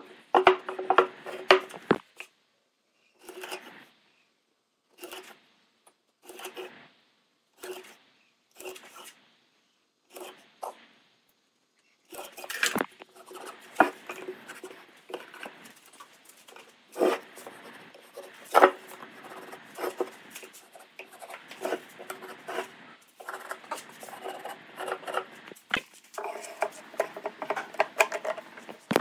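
Short scraping strokes on wood, at first about one every second and a half, then quicker and busier from the middle on.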